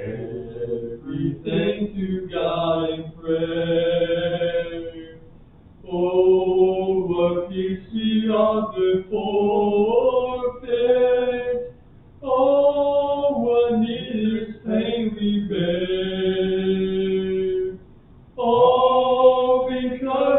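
A man singing a hymn without accompaniment, in long held phrases about six seconds each with short breaks for breath between them.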